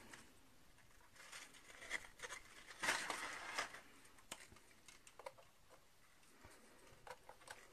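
Faint rustles and a few soft clicks as butter biscuits are laid one by one onto the chocolate layer in a cling-film-lined loaf tin.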